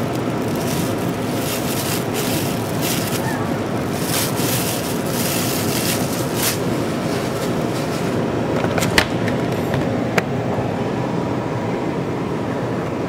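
Steady rush of air from an Elgin portable air conditioner at the duct terminal where its intake duct draws outside air, with a plastic bag crinkling in the airflow during the first half. Two sharp clicks come about nine and ten seconds in.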